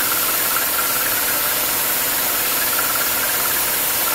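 Vertical milling machine running steadily as its end mill cuts a quarter-inch-deep undercut into annealed 4140 steel, a constant machining noise with a faint high tone over a hiss.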